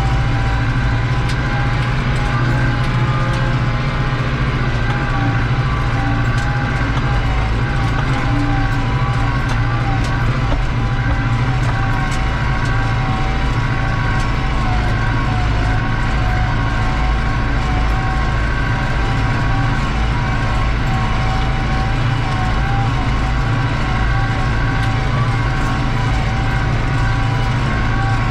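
New Holland TD85 tractor's turbocharged diesel engine running steadily under load, pulling a disc harrow through ploughed soil, heard from inside the cab. A steady turbo whine sits over the deep engine drone.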